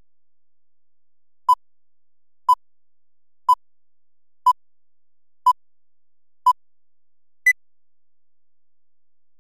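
Film countdown-leader beeps: six short electronic beeps at one steady pitch, one a second, then a final beep at a higher pitch a second later.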